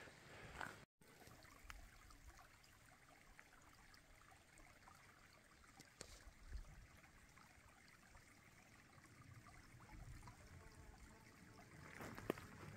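Faint trickle of a small, shallow mountain creek, a tributary of Tarryall Creek.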